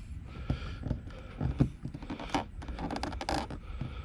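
Irregular light knocks and scrapes of hands working at a car's side marker light and its tint film, with one sharper knock about one and a half seconds in.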